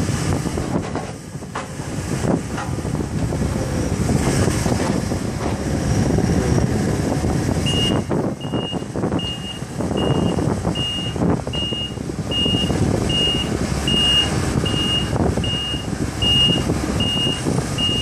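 Takeuchi TB290 compact excavator's diesel engine running with occasional knocks as the machine works. From about eight seconds in, its travel alarm beeps steadily, about one and a half beeps a second, as it moves.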